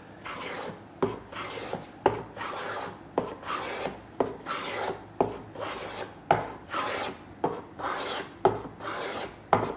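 Flat-bottomed spokeshave taking shavings off the curved edge of an ash board in repeated strokes, about one a second. Each stroke starts with a sharp click and runs on as a short rasping hiss.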